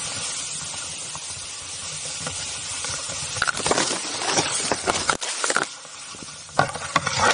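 A steady hiss, then from about halfway a run of rustling and crackling as brush and grass are pushed through and rub against the camera.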